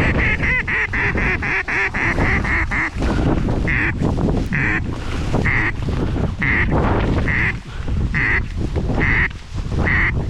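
Mallard hen quacks: a quick run of about ten quacks, then single quacks about once a second, over wind rumbling on the microphone.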